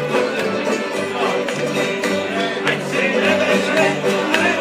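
Live bluegrass-style string band playing: a banjo picked quickly over a strummed acoustic guitar, with a walking low part underneath.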